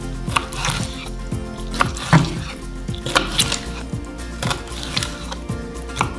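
Knife chopping fish fillets into pieces on a cutting board: sharp, irregular strokes about every half second, over background music.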